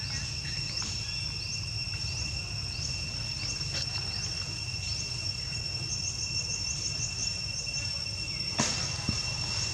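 Insects droning steadily in two high, even pitches, with short rising chirps repeating about every two-thirds of a second over a low rumble. A single sharp knock comes near the end.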